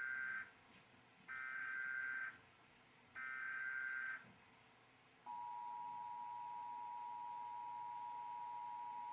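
Emergency Alert System test: the warbling digital SAME header data bursts of an EAS encoder, the end of one burst and then two full bursts about a second long with short gaps, followed about five seconds in by the steady two-tone EAS attention signal, which starts abruptly and holds.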